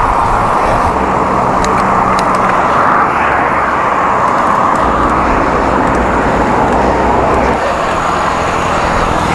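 Steady rush of wind and tyre noise on a camera mounted on a moving road bike, with a few light clicks about two seconds in.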